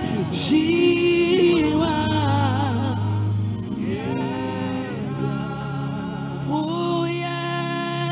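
A male gospel singer singing a slow Twi worship song into a microphone, holding long notes that bend and slide, over sustained keyboard-like backing chords.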